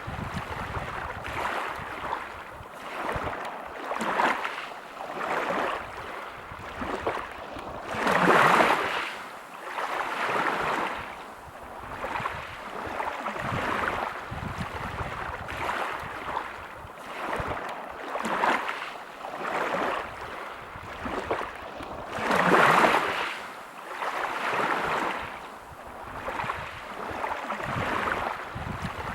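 Sea waves breaking and washing over a pebble beach, swelling and fading every couple of seconds, with two bigger waves breaking about eight and twenty-two seconds in.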